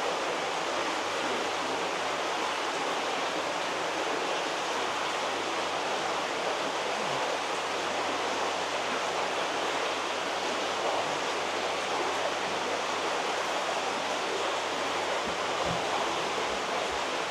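Steady rush of churning water from heavily aerated, high-flow koi ponds.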